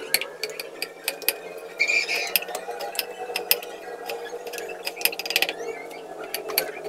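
Knife cutting small round green vegetables on a wooden board: a quick, irregular series of sharp taps, several a second.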